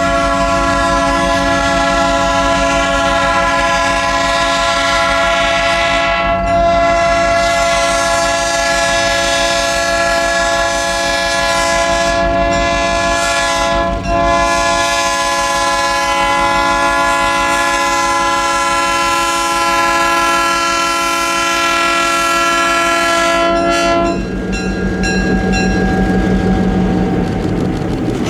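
Diesel locomotive air horn sounding a chord in a long, long, short, long sequence of blasts, over the rumble of the passing train. The horn stops about 24 seconds in, leaving the rolling train with rail clatter.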